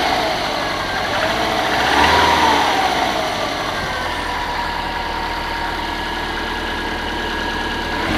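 Subaru Forester's EJ205 turbocharged 2.0-litre flat-four engine, blipped once about two seconds in and then idling steadily. It has a knock that the owner cannot pin down: possibly the fourth cylinder, possibly something else.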